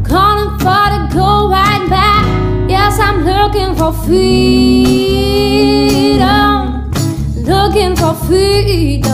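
Background music: a song with a singing voice over guitar, the voice holding one long note about halfway through.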